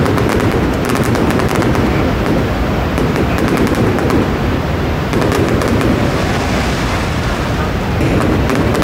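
Aerial fireworks crackling and popping in quick strings of sharp cracks, over a steady loud background noise.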